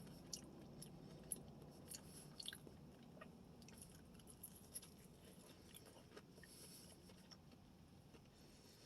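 Faint chewing with small crunches and soft mouth clicks, coming and going irregularly: someone eating fried chicken up close to the microphone.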